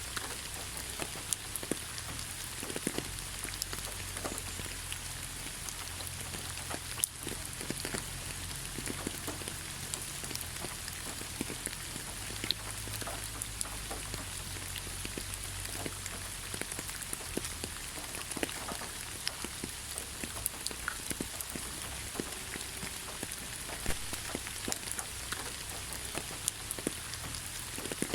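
Steady rain, an even hiss dotted with many small drop ticks, over a low constant rumble.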